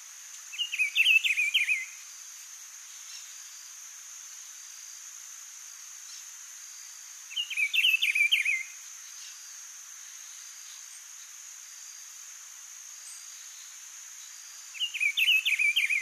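Rufous-browed peppershrike singing: three rich, warbled phrases, each a little over a second long and about seven seconds apart. A steady high-pitched insect drone runs underneath.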